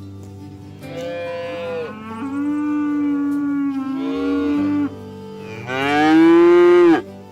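Cattle mooing: a long drawn-out moo through the first half, then a louder, shorter moo near the end that rises and falls in pitch, with soft background music underneath.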